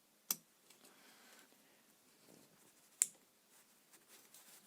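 Two sharp metal clicks, a fraction of a second in and about three seconds in, with faint scraping between, as an awl pries a retaining ring out of its groove in a power steering pump housing.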